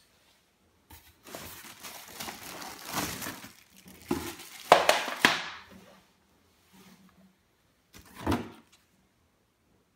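Clear plastic packaging wrap crinkling and rustling as it is handled in a cardboard box, with the loudest crackles about four to five seconds in. A short rustle follows near the end as a hand reaches in among the box contents.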